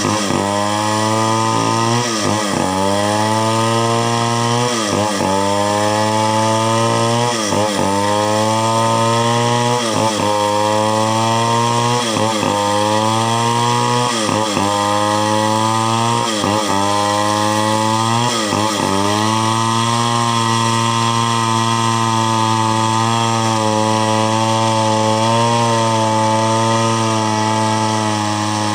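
Chainsaw engine running hard, its note dipping sharply and recovering about every two seconds, then holding steady for the last third.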